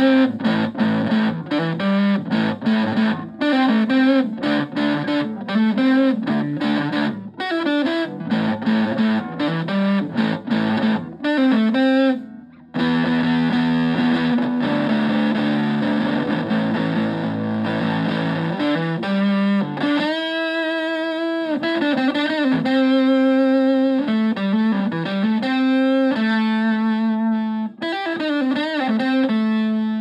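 Stratocaster electric guitar played through a Tone Bender-style fuzz pedal into a Twin Reverb-style amp. It plays choppy fuzzed riffs for about twelve seconds, then after a brief break moves to held fuzzed chords. It ends on single-note lines with vibrato.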